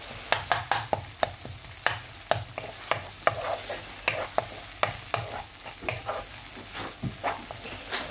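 Wooden spatula scraping and knocking against a frying pan, irregularly about two or three times a second, as onions and tomatoes are stirred, over a steady sizzle of frying in oil.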